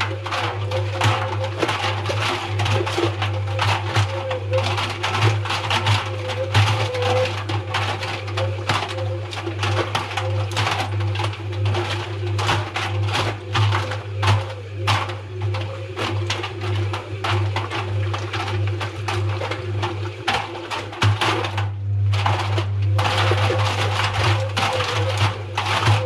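Front-loading washing machine drum turning with a steady motor hum, while balloon bears tumble inside, knocking and rustling irregularly against the drum and door glass. Near the end the tumbling pauses for about a second, then starts again.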